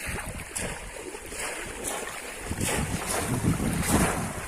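Water splashing and sloshing in shallow water in uneven surges, louder in the second half, with wind buffeting the microphone.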